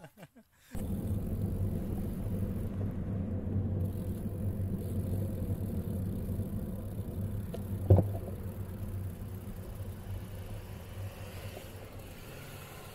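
Steady low rumble of wind and road noise on an action camera's microphone while riding a road bike, slowly fading. A single sharp click about eight seconds in.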